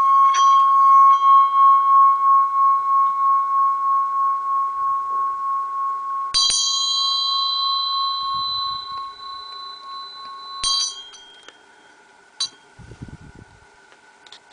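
Bell-metal Buddhist hand bell (ghanta) made to sing: one steady ringing tone that swells over the first second and then slowly fades, with a regular wobble about twice a second. About six seconds in it is struck, giving a brighter ring with higher overtones that dies away over a few seconds. Near the eleventh second a touch cuts the ringing off, followed by a small click and some handling noise.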